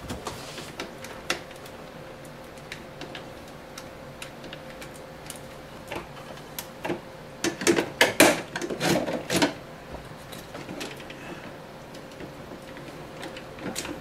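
Clicks, taps and plastic knocks of hands working on the parts inside a refrigerator's fresh-food compartment, scattered at first and bunched into a busy run of rattling handling about halfway through.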